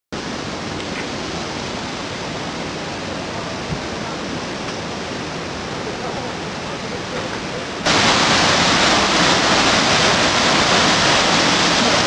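Steady rushing of a large waterfall, an even noise that jumps much louder and brighter about eight seconds in, as it is heard close to the falling water.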